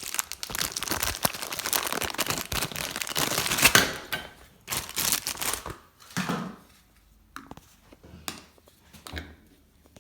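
Packaging crinkling and tearing as a new mixer-tap cartridge is unwrapped, a dense crackle for about four seconds, followed by a few light clicks and knocks of the parts being handled.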